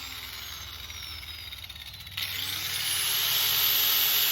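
Electric angle grinder spinning down, its whine falling in pitch, then switched back on about halfway through: the motor whine rises as it spins up and runs at speed with a loud grinding hiss.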